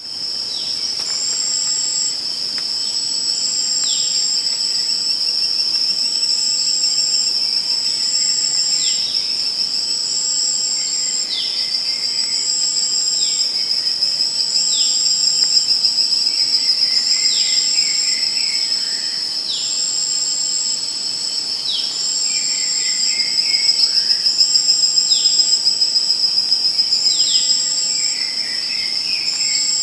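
Night insect chorus of crickets: one continuous high trill, overlaid by a second insect's short, higher chirps repeating about every second and a half. Short falling calls come every second or two.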